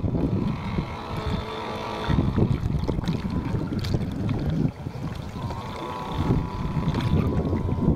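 Water sloshing and rushing past the hull of a radio-controlled model tugboat, heard from a camera mounted on the boat just above the waterline. Wind buffets the microphone in uneven surges. A thin, steady whine sounds in the first couple of seconds and again from about halfway on.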